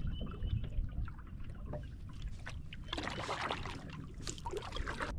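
Double-bladed kayak paddle strokes: the blades dip into the water with light splashes and drips, in irregular clusters.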